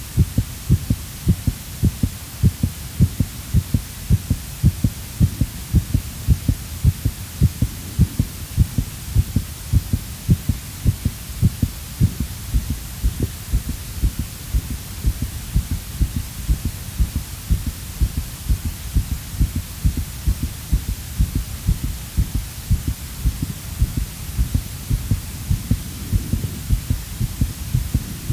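Heartbeat sound effect: a steady, quick rhythm of low, paired thumps over a continuous low hum.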